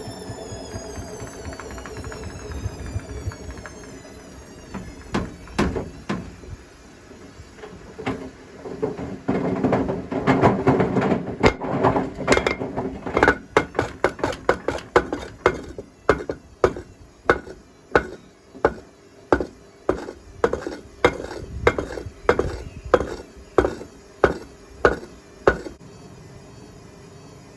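Hotpoint Smart Tech WMFUG742 washing machine with bricks in its drum: the motor's whine falls as the drum slows, then the bricks bang inside the drum as it turns. A burst of clattering gives way to a steady knock about one and a half times a second, which stops near the end.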